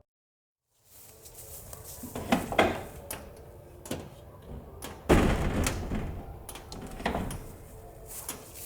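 Light aluminum door knocking and clattering as it is wrestled into its frame, a string of irregular clunks and rattles with the loudest clunk about five seconds in.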